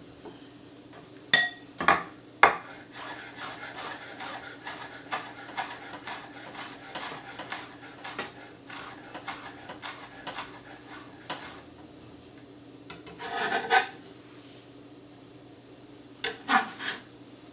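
Kitchen handling sounds as dill is added to matzo ball mix. A few sharp clicks come first, then a run of quick scraping strokes, roughly two a second, then a louder scrape about three-quarters of the way through and a few more clicks near the end.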